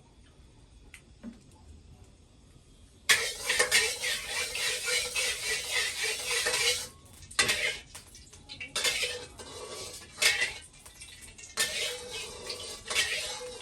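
A metal utensil scraping and clattering against a cooking pan, in several stretches starting about three seconds in.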